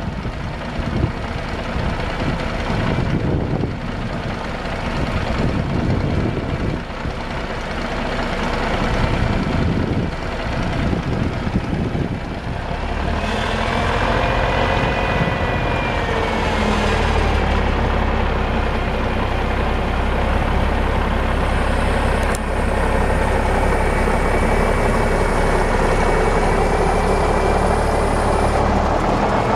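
Cummins 8.3L diesel engine of a grain truck running, driving the PTO hydraulic pump as the twin-cylinder hoist raises the grain bed. From about halfway it runs steadier and louder, with a high whine coming and going over it.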